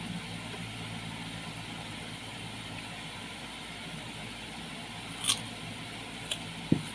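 Steady mechanical hum in the background. Two sharp clicks come about five and six seconds in, then a short low thump near the end as a bite of raw fruit is taken.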